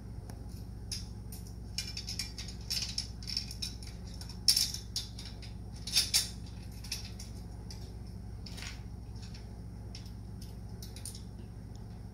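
Loose metal nuts, bolts and tools clinking and rattling as they are handled during assembly of a sports arcade game's frame. The light clinks are busiest in the first half, and the sharpest come about four and a half and six seconds in.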